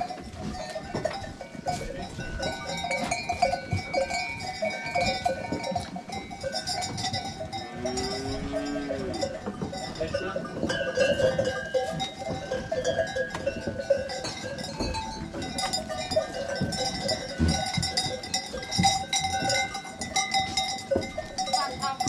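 Many bells on a herd of goats clanking and ringing together without a break, with one goat bleating about eight seconds in.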